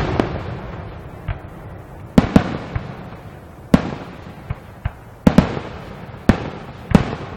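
Aerial fireworks shells bursting in a finale: about a dozen sharp bangs at irregular intervals, some in quick pairs, each trailing off in a long echo.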